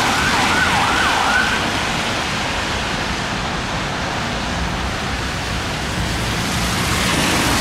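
Fire engine siren on a fast yelp, rising and falling about twice a second, stopping about a second and a half in. After that, a steady rumble of engines and street traffic.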